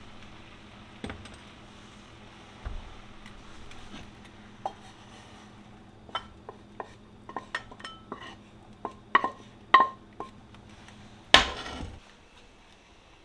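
Kitchenware clinking and tapping: chopsticks, a frying pan and a glass bowl knocked together in a run of sharp clinks, some ringing briefly, from about six to ten seconds in, then one louder knock just after eleven seconds. A faint steady sizzle from the frying pan lies under it.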